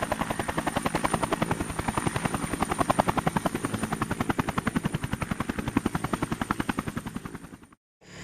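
Helicopter rotor chopping in a fast, steady beat, with a thin high whine over it. It cuts off abruptly near the end.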